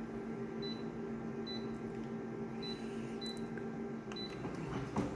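Photocopier control panel giving short high key beeps, about five of them, as touchscreen options are tapped over the machine's steady hum. Near the end comes a sharp knock as Start is pressed and the copier starts its scan.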